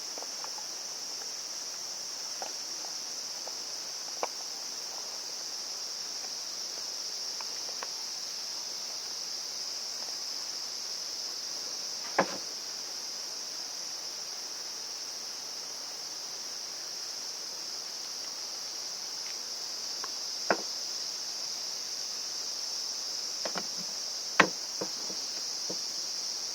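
Steady, high insect chorus. Over it come a few sharp clicks and knocks, scattered singly and then several close together near the end, the last of them the loudest.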